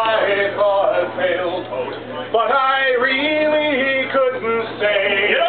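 Men singing a chantey, with long held notes that bend in pitch.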